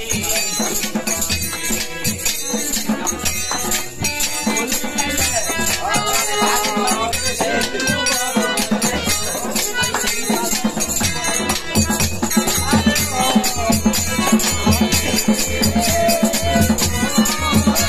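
Bengali Baul folk music played live: a harmonium holds the tune, a small hand-held frame drum with jingles is shaken and struck in a steady rhythm over a low drum beat, and a voice sings a bending melody.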